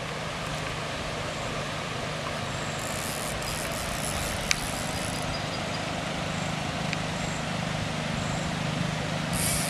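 Steady rushing of a shallow, rocky creek running over a riffle, with a single sharp click about four and a half seconds in.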